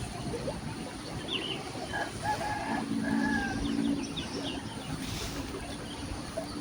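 A rooster crowing once, about two seconds in, with small birds chirping over a steady background hiss.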